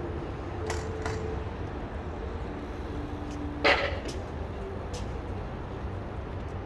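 Outdoor city ambience: a steady low rumble with faint distant voices, a few light clicks, and one sharp knock a little past halfway.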